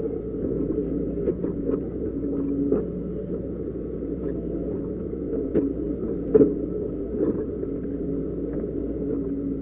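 Doosan DX140 excavator's diesel engine and hydraulics running steadily under load, heard from inside the cab, while the bucket scrapes and pushes rock and soil to build up the road, with scattered knocks and clatter of stones; the sharpest knocks come about five and a half and six and a half seconds in.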